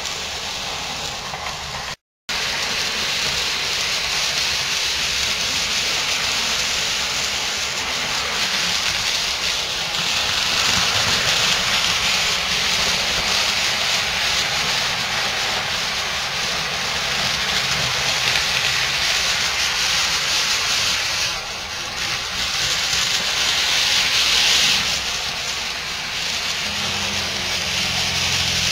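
HO and N scale model trains running on the layout: a steady hiss of small motors and wheels rolling on track, broken for an instant about two seconds in, with a low steady hum coming in near the end.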